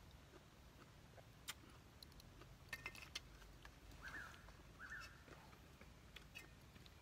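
Faint clinks and taps of a bowl and spoon being handled while eating, with a cluster of clinks, one briefly ringing, near the middle. Two short high calls sound in the background a little later.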